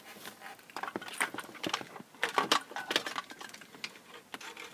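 Irregular clicks and rattles of plastic wiring-harness plugs and loose wires being handled and pushed into the back of a car DVD head unit.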